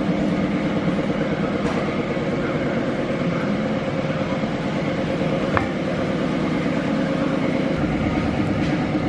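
Steady machine drone with several even tones, with one light click about five and a half seconds in.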